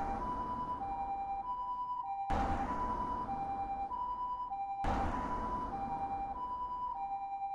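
Japanese-style two-tone hi-lo ambulance siren, switching between a higher and a lower pitch about every two-thirds of a second. A rushing noise surges in suddenly and fades away, recurring about every two and a half seconds.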